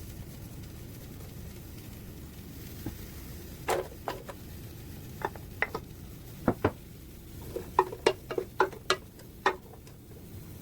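A utensil knocking and clinking against a cooking vessel, about fifteen sharp strikes that ring briefly, in irregular groups over a steady low background hum.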